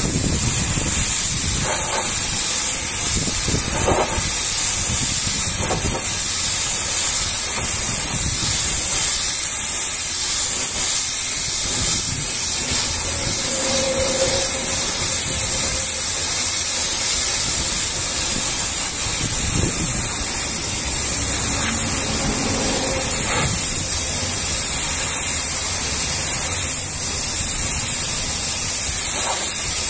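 High-pressure washer lance spraying a water jet against the tank of a fuel tanker trailer: a steady, unbroken hiss.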